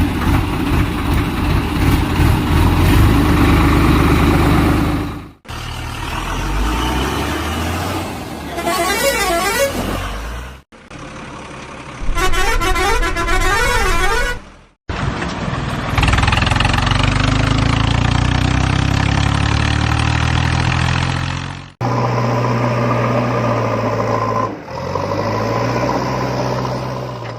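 A string of vehicle sounds cut abruptly one after another: engine running, two bursts of warbling tones, an engine note that slowly rises, and a steady horn-like sound near the end.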